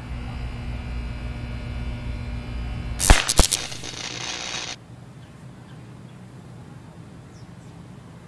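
High-voltage electrical arc through a woodpecker on a utility pole: a steady electrical buzz, then about three seconds in two sharp cracks a fraction of a second apart, followed by a sizzling hiss that cuts off abruptly about a second and a half later.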